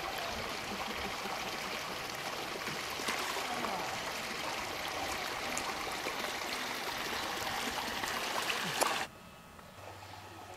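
Steady rush of moving water in a swimming pool, with a few small splashes. It cuts off suddenly about nine seconds in.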